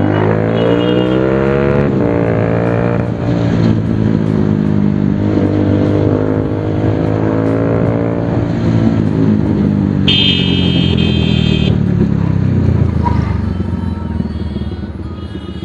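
Bajaj Pulsar 220's single-cylinder engine breathing through an aftermarket SC Project exhaust while being ridden, pitch rising under acceleration, dropping at a gear shift about three seconds in, then running steadier and easing off near the end. A vehicle horn sounds briefly about ten seconds in.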